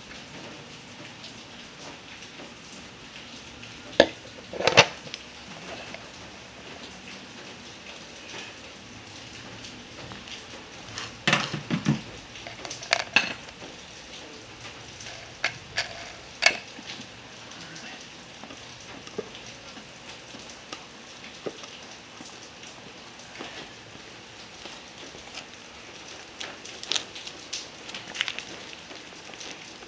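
Vibratory tumbler running, its cleaning media rattling with a steady hiss, broken by a few sharp knocks and clatters about four, eleven to thirteen and sixteen seconds in.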